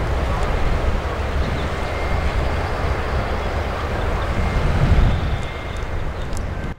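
Amtrak California Zephyr passenger train running away in the distance: a steady low rumble mixed with wind buffeting the microphone.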